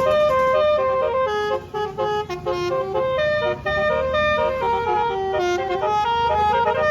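Basuri telolet multi-tone musical bus horn playing a quick tune of short stepped notes, with two or three tones often sounding together.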